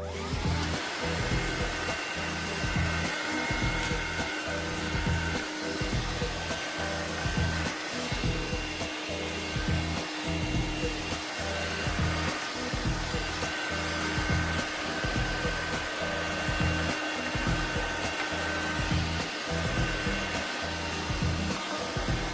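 Cordless handheld 120 W car vacuum cleaner running steadily at its single suction level, a motor whine over a rush of air, as it is worked across a floor.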